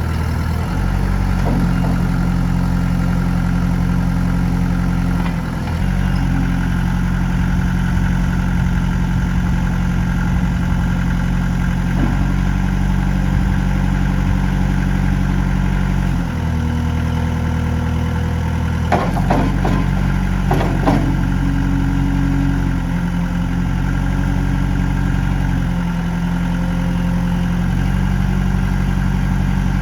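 Diesel engine of a 2004 Kubota L48 tractor-loader-backhoe running, its pitch stepping up and down several times. A few sharp metallic clanks come about two-thirds of the way through.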